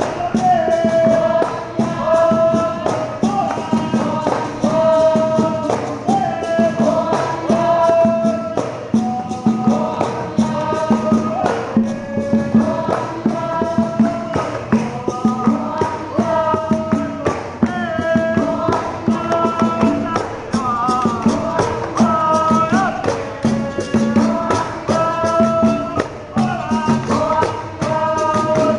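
Capoeira roda music: berimbaus and a pandeiro with an atabaque drum and hand-clapping keep a steady beat under group singing.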